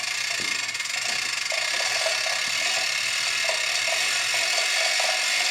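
Hoist lifting a rigged Caterpillar 3412 crankshaft: a steady mechanical ratcheting clatter, with a low hum that stops about four and a half seconds in.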